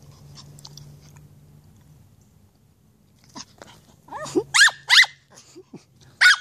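Small shaggy dog barking in short, high yaps, about five in quick succession starting a little past halfway, some falling in pitch.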